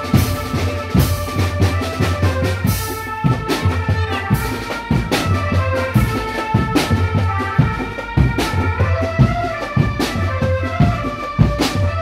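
Drumband music: drums keep a steady beat under a deep bass and a horn-like melody.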